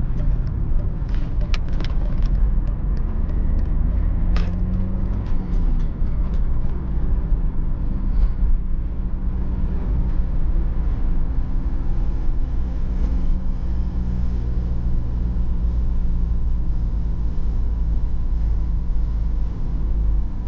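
Inside the cabin of a moving BMW E46 320d: its 2.0-litre four-cylinder common-rail diesel and the tyre and road noise make a steady low rumble. The engine note rises around four seconds in as the car pulls away, and there are a few short clicks in the first few seconds.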